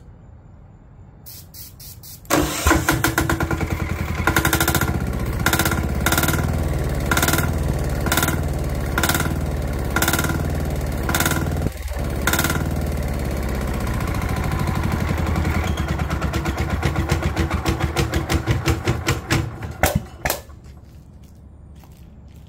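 Lombardini 15LD400 single-cylinder air-cooled diesel engine on a generator, turned over on its electric starter and firing on starting fluid with a dry fuel tank. It runs roughly with sharp knocks about once a second for some eighteen seconds, then dies suddenly near the end.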